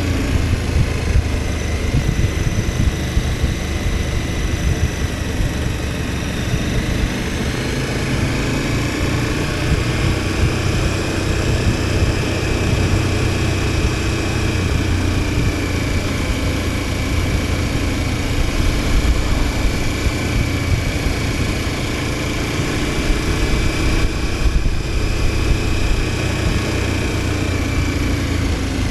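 KTM 1290 Super Adventure S's V-twin engine running steadily on the move, its pitch drifting gently up and down, over a constant rush of wind and road noise.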